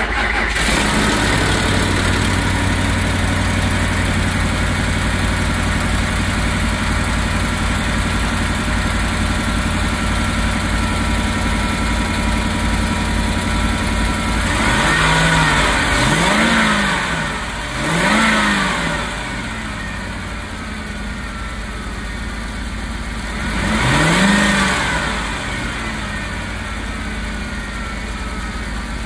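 2006 Ford F-150 pickup's gasoline engine idling steadily under an open hood. Past the halfway mark the throttle is blipped three times in quick succession, then once more a few seconds later, each rev rising and falling back to idle.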